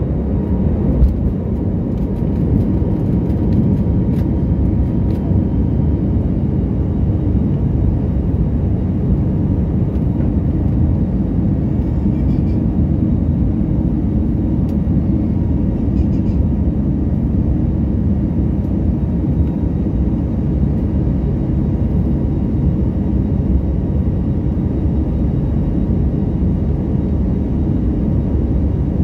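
Cabin noise of an Airbus A321neo's Pratt & Whitney PW1100G geared turbofan engines at takeoff thrust, a loud steady low rumble heard from a window seat over the wing through the takeoff roll, liftoff and initial climb. A few light knocks come in the first few seconds.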